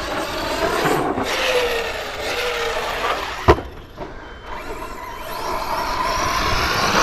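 Arrma Kraton 6S RC truck's brushless motor whining as it speeds up and slows down, its pitch rising and falling. One sharp knock sounds about three and a half seconds in, and the whine climbs again near the end.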